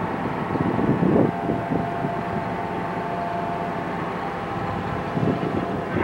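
Engine running steadily: a drone with several held tones, and a brief louder surge about a second in.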